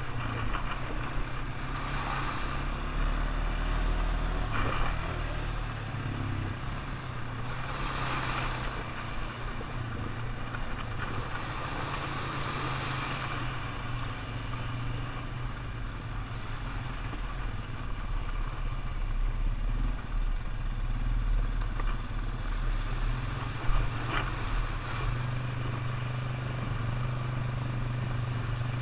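ATV engine running at a steady pitch while riding, with occasional short rushes of noise and a single sharp knock near the end.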